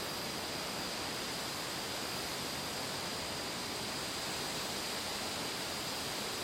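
Steady, even rushing hiss of ambient background noise, with no distinct events and a faint high-pitched band held throughout.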